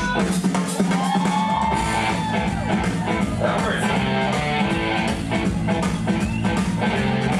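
Loud music with guitar over a steady bass line, played through the hall's amplification.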